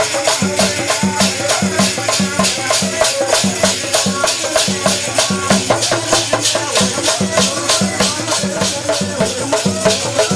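Rhythmic festival music: a fast, even beat of shaken rattles or jingles, about five strokes a second, over grouped drum beats and a wavering melody line.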